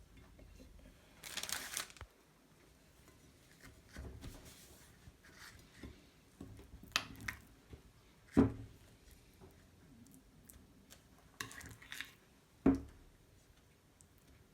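Spring roll wrappers being handled and rolled around a filling by hand: short rustling, crinkling sounds twice, with a few sharp knocks, the loudest a little past halfway and again near the end.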